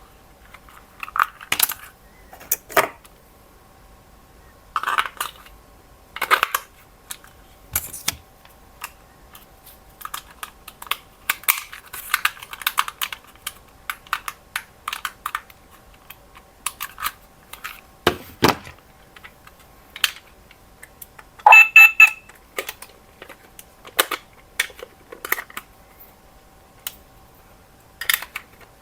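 Irregular clicks, taps and clatter of hard plastic RC toys and their parts being handled, with a short electronic beep about three quarters of the way through.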